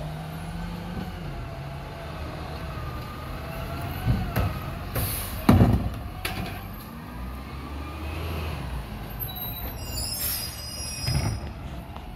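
Garbage truck's diesel engine running as the truck pulls slowly away, with a wavering whine over the engine and two loud knocks about four and five and a half seconds in.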